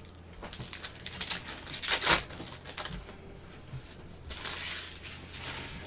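Trading-card pack wrappers crinkling and tearing as packs are ripped open by hand. The loudest rip comes about two seconds in, and a longer spell of crinkling follows later.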